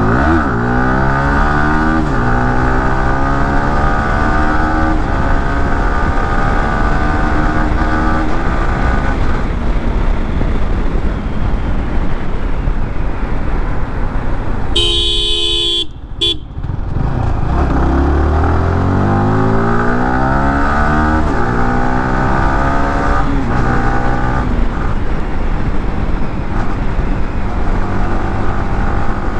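Yamaha R15M's 155 cc single-cylinder engine running hard and accelerating, its pitch climbing near the start and again after the middle. About halfway through the engine drops away for a moment and a brief horn sounds.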